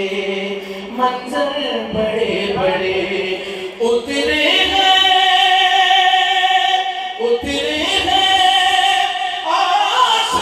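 A man reciting a manqabat, an Urdu devotional poem, in song into a handheld microphone. Short, moving phrases come first, then from about four seconds in he holds two long notes, one after the other.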